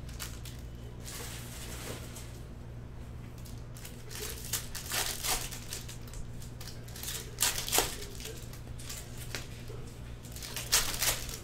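Foil trading-card pack wrappers crinkling and tearing as packs are opened, in several short bursts, with cards rustling in the hands.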